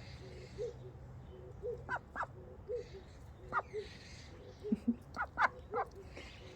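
Backyard poultry calling: a soft low call repeats about once a second, and short sharp calls come singly and in quick clusters, most of them in the second half.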